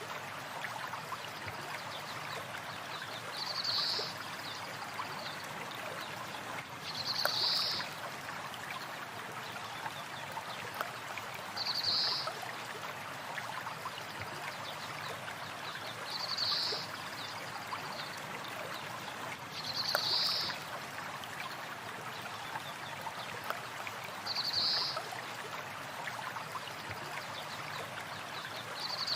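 A stream or river flowing steadily, with a short high bird call repeating at even spacing about every four seconds.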